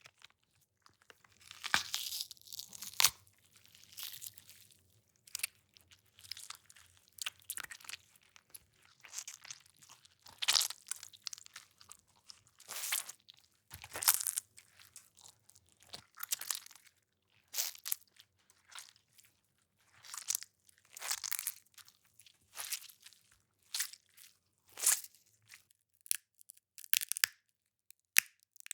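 A string of separate wet crunches, snaps and squelches: grapefruit, celery, walnuts and peppers being crushed, broken and squished close to the microphone as raw gore foley, each sound short with brief gaps between.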